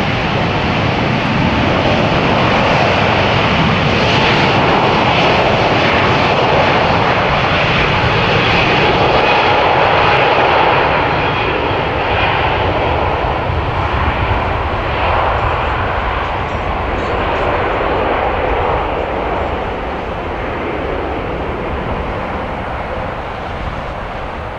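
Jet airliner engines, a steady loud rushing noise that swells over the first ten seconds and then slowly fades.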